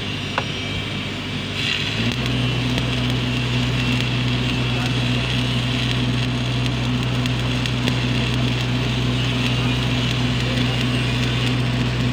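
Stick (shielded metal arc) welding: about two seconds in the electrode arc strikes, then crackles and hisses steadily. Under it a steady low hum comes in as the engine-driven welding generator takes the load.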